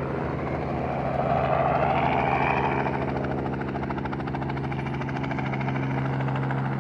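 Light helicopter hovering low, a steady engine-and-rotor drone with a rapid rotor beat. It grows louder about a second in and eases back after about three seconds.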